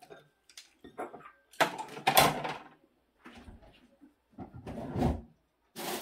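Kitchen clatter: a few short knocks, thuds and scraping slides of things being moved and shut, loudest about a second and a half to two and a half seconds in, with more around five seconds and near the end.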